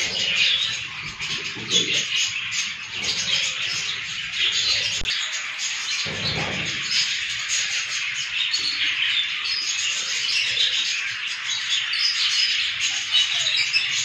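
A flock of budgerigars chattering and chirping non-stop, many birds calling over one another, with a few faint low knocks.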